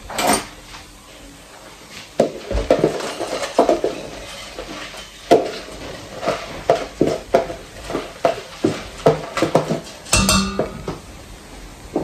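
Kitchen bowls, pans and utensils knocking and clinking against each other in a long run of short clatters, with a louder clatter at the start and another about ten seconds in.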